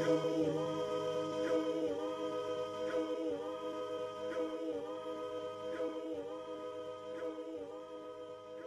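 Music: a sustained chord closing the song, slowly fading out.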